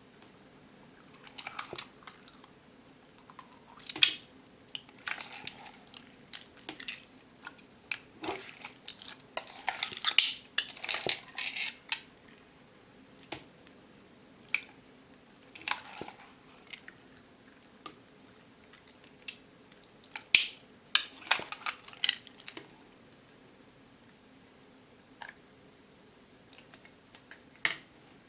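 Slime packed with small plastic pearl beads being worked, giving off clusters of sticky crackling, clicking and squelching, with quieter gaps between bursts.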